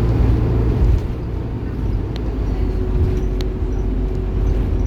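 Bus engine and road noise heard from inside the moving bus: a steady low rumble that eases about a second in, with a couple of short clicks or rattles.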